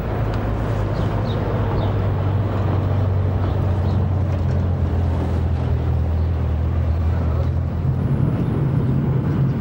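Steady low hum of a running engine over an even wash of outdoor noise; about eight seconds in, the hum steps up to a higher pitch.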